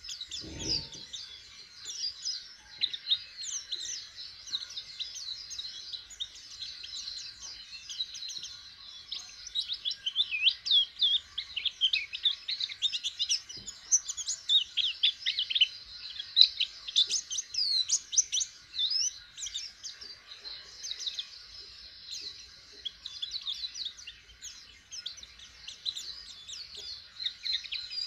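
Caged white-eye (pleci) singing a continuous, rapid jumble of high chirps and twitters, busiest in the middle of the stretch. It is a young bird just beginning to sing.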